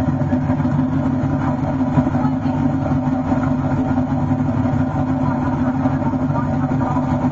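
Chevrolet pickup truck's engine running hard at a steady pitch under load as it drags a weight-transfer pulling sled.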